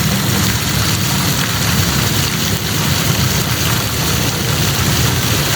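Steady rain shower falling, an even hiss with a low rumble underneath.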